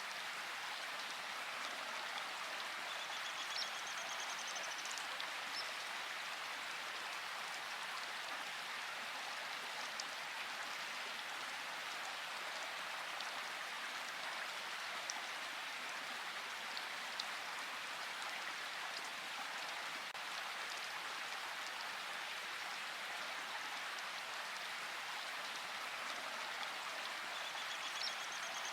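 Steady rain falling, an even hiss of drops with a few sharper individual drips standing out now and then.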